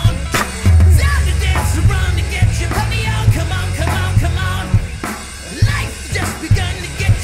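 Rock song with sung lead vocals over electric guitar, bass guitar and drums.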